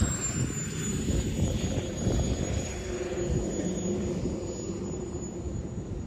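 Radio-controlled model aircraft flying, its engine heard as a thin high whine that slides down a little in pitch and then holds steady, over wind rumble on the microphone.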